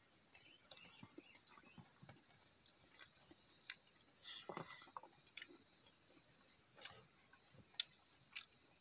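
Faint, steady high-pitched insect trilling with a pulsing trill beneath it, under scattered soft clicks and smacks of people eating with their hands.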